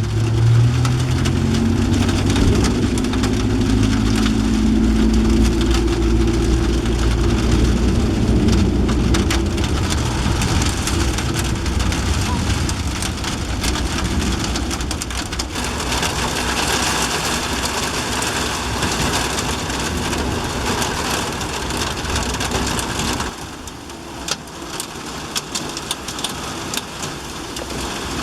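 Heavy thunderstorm rain pouring down, with a low rumble under it in the first half. About halfway through the rain swells louder for several seconds, then eases off near the end.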